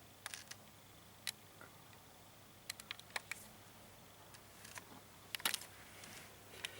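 Irregular sharp clicks and taps of a handheld camera being handled, heard while the camera is struggling to focus.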